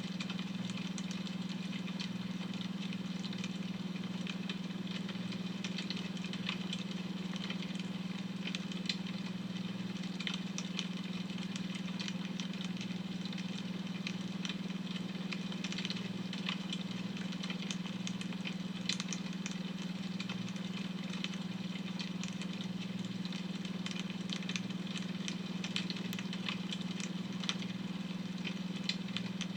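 Wood fire crackling with irregular small pops, over a steady low droning tone from a beta-wave brainwave track.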